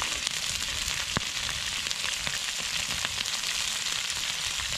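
Moose meat frying in its fat in a cast-iron skillet: a steady sizzle with a few sharp pops, the clearest about a second in.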